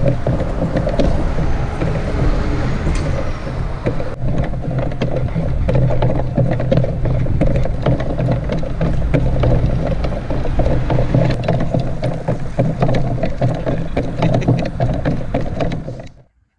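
Plywood walking machine on a wheeled cart travelling over pavement: a steady drive hum under a constant clatter of clicks and knocks from the wooden leg linkages and wheels.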